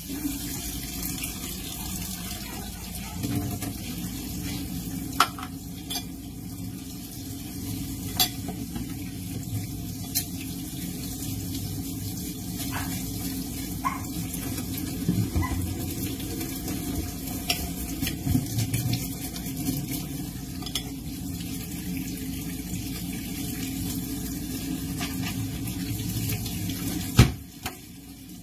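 Tap water running into a stainless steel kitchen sink while a computer motherboard is scrubbed with a sponge under it, with sharp clinks and knocks of the board against the sink every few seconds. There is one loud knock near the end.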